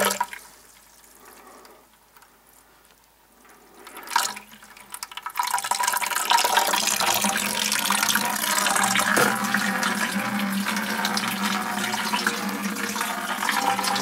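Sprinkler supply pipe being drained at a valve: fairly quiet for the first few seconds, a brief knock about four seconds in, then a steady rush of water as the line's pressure is let off.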